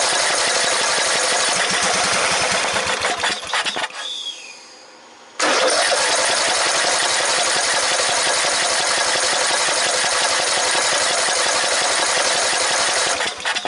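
A 14.5 hp Briggs & Stratton riding-tractor engine cranking on its starter without catching, in two long runs: the first stops about four seconds in, and the second starts a second and a half later and runs nearly to the end. It will not start because the fuel pump is not pumping fuel.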